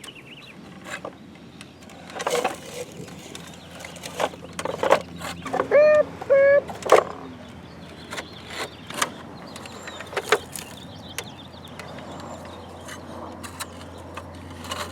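Plastic toy construction trucks knocking and scraping in dirt as it is dug and loaded into a toy dump truck: an irregular string of clicks, knocks and scrapes, with two short high-pitched tones about six seconds in.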